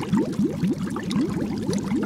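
Underwater bubbling sound effect: a dense stream of short, rising bubble blips, several a second.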